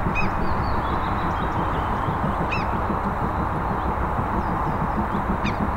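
Steam locomotives starting a heritage train far off, heard as a steady distant rushing rumble. A bird calls three times over it.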